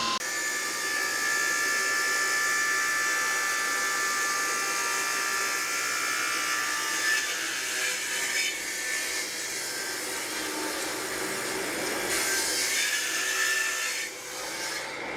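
Stone-cutting saw grinding steadily through a stone block, with a shrill whine that fades about halfway through, leaving a rougher grinding noise.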